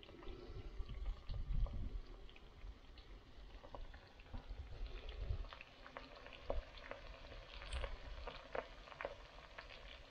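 Breaded chicken nuggets frying in melted lard in a mild steel skillet, sizzling with scattered sharp pops and crackles.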